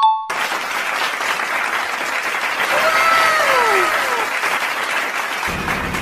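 Applause sound effect: a crowd clapping steadily, opening on a brief chime and with a few falling calls about three seconds in.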